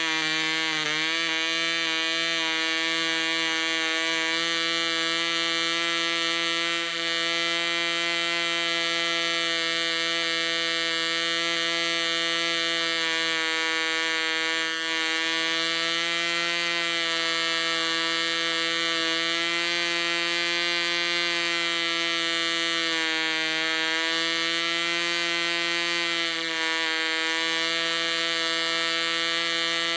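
PAW 55 (0.55cc) model aero two-stroke diesel engine running steadily on a test stand at about 10,000 rpm, a high buzz whose pitch wavers slightly.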